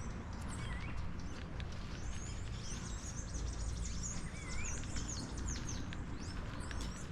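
Several small birds chirping and calling in quick, short rising and falling notes, over a steady low rumble.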